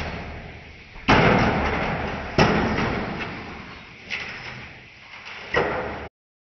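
Four sudden thumps, each trailing off in a fading rumble over a second or so; the sound cuts off suddenly near the end.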